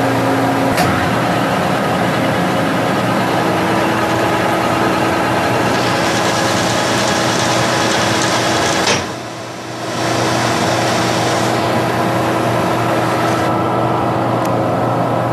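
Warner & Swasey No. 3 turret lathe running, its 10 HP Reliance electric motor and gearing giving a steady hum with constant whining tones. A sharp click a little under a second in, and the level dips briefly around nine seconds in.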